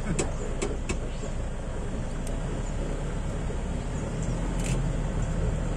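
Vehicle engine running, heard from inside the cab as a steady low hum, with a few light clicks in the first second.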